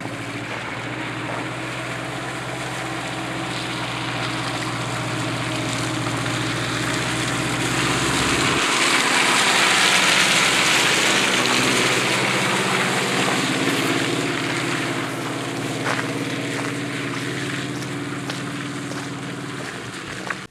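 Motor vehicle engine running with road noise. The noise swells to a peak about halfway through and then eases off.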